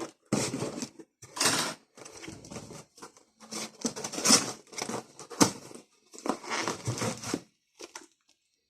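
A small cardboard box being opened by hand, with packaging tearing and crinkling in irregular bursts.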